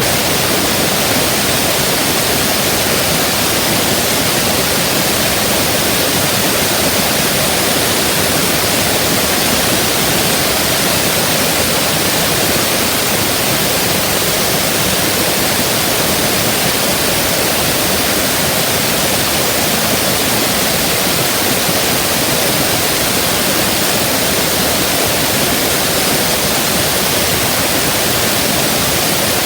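Compressed air blasting out of an opened valve on a Champion VR7-8 air compressor's tank: a loud, steady rushing hiss that starts abruptly and holds unchanged.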